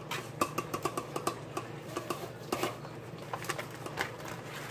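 A spoon scraping and tapping against a disposable aluminium foil pan as crumbly cookie crust mix is pressed into the bottom: irregular light clicks and scrapes, several a second.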